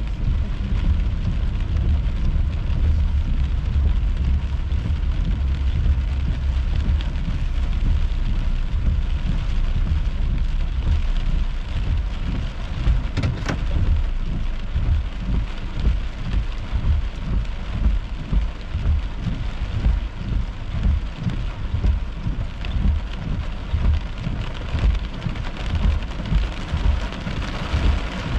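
Heavy rain drumming on a car's roof and windshield, heard from inside the car, over a deep rumble that swells and fades in uneven pulses.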